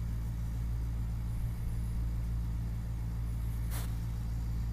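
Steady low hum of background noise, with a single short click near the end.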